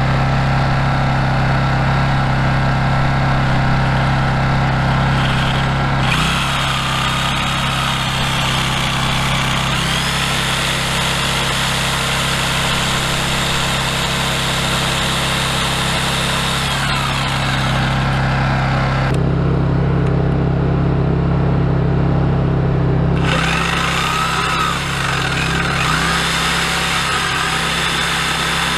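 Motorised power tools running steadily over a constant low engine-like hum, in several stretches that change abruptly.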